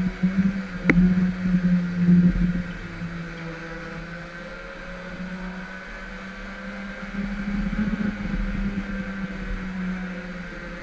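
Go-kart running at speed, heard from on board: a steady motor drone with a higher whine above it. A sharp knock comes about a second in, with rattling over the first couple of seconds.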